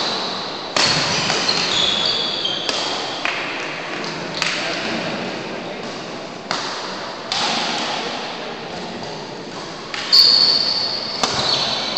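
Badminton rackets striking a shuttlecock in a rally, sharp hits a second or two apart that ring on in the echoing hall, with high squeaks of shoes on the wooden court.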